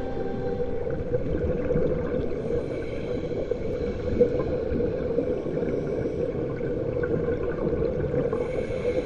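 Muffled, steady underwater noise picked up by a camera in its waterproof housing, with a constant low hum and a few faint held tones.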